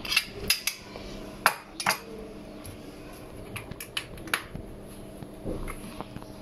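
A few sharp clinks and knocks of glass bowls and kitchen dishes being handled and set down on the counter. Most come in the first two seconds, with a couple more about four seconds in.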